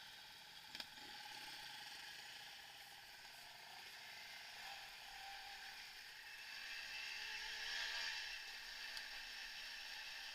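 Bicycle being ridden, its tyres and chain drivetrain whirring with light clatter. There is a click about a second in, and the sound grows louder about seven seconds in.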